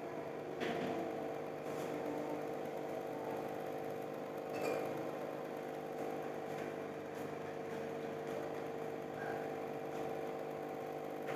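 Aquarium pump humming steadily, a constant motor drone, with a few faint clicks.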